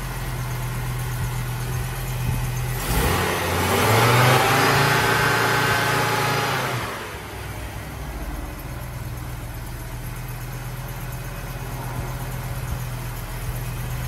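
1986 Audi 4000CS engine idling after a cold start. It is revved once about three seconds in, the pitch rising and then falling back to a steady idle about four seconds later.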